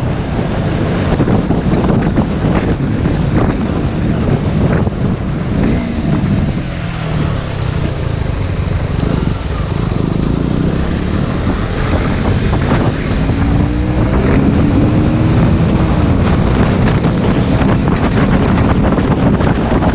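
Heavy wind buffeting on a motorcycle rider's camera microphone, with a KTM Duke 125's single-cylinder engine running underneath. The engine pitch rises as it accelerates, once about six to ten seconds in and again a few seconds later.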